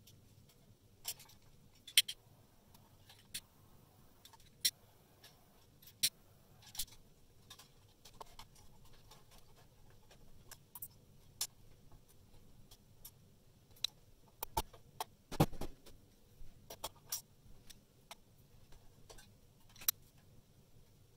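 Scattered light clicks and taps of wires, crimp terminals and hand tools being handled in and against a sheet-metal enclosure during rewiring, with one louder thump about fifteen seconds in.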